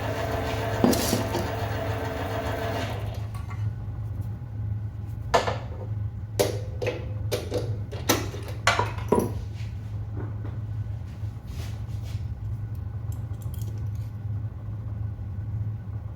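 A small motor whines for about three seconds and stops, then a run of sharp clicks and taps from hand work on a pistol firing pin being lengthened, with a steady low hum underneath.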